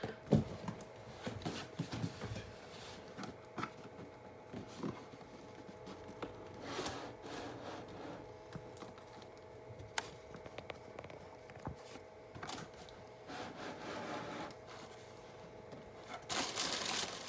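A cardboard shoebox being handled and opened, with scattered light taps, knocks and scrapes of card on card. About a second before the end, tissue paper inside the box starts to rustle.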